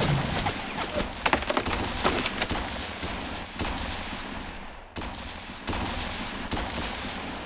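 Battle sound effects of gunfire: a string of shots over a hiss that fades out just before five seconds in, then more scattered shots.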